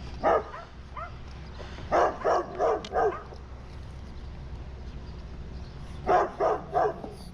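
Big dog barking in short runs: one bark, then four quick barks, then after a pause three more.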